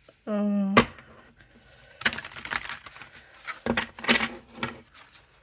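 A deck of tarot cards being shuffled by hand: a quick, uneven run of card clicks and rustles that starts about two seconds in, after a single sharp tap.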